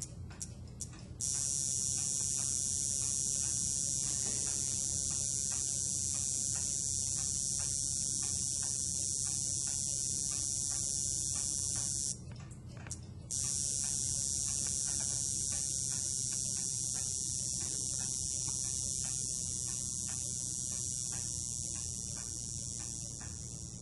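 A homemade high-voltage transformer, driven by a 555 timer in PWM mode through a power MOSFET, gives a steady high-pitched buzz. It cuts out abruptly for about a second midway. A few sharp clicks come just before it starts and again in that gap.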